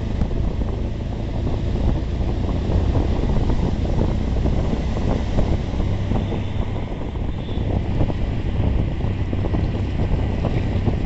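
Wind buffeting the microphone from inside a moving vehicle with an open side, over the steady low rumble of the vehicle running on a wet road.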